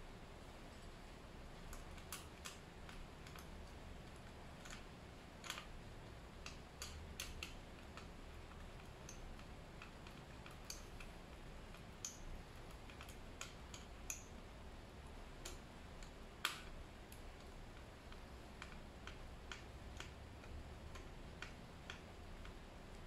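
Scattered small clicks and ticks of metal clamp hardware and plastic being fitted and tightened onto a brush cutter's aluminium shaft, one sharper click about three quarters of the way through, over a faint low hum.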